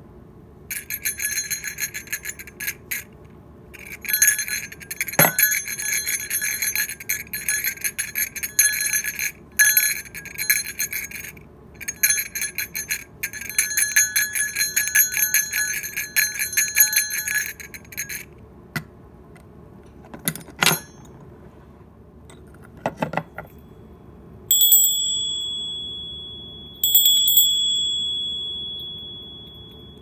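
A mont-bell bear bell, a round black jingle-type bell, shaken in a rapid continuous jingle over several stretches with short breaks, followed by a few knocks. Then a small brass bear bell with a clapper rings twice, each a clear high-pitched note that fades away slowly, like a wind chime.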